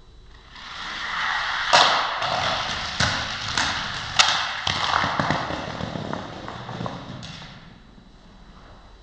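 Die-cast Hot Wheels car rolling down a plastic gravity track: a rattling roll of about seven seconds, broken by several sharp clacks, the loudest a little past four seconds in, before it stops.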